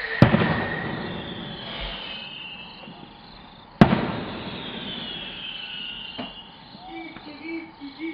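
Fireworks exploding: two loud bangs about three and a half seconds apart, each trailing off into a fading crackle.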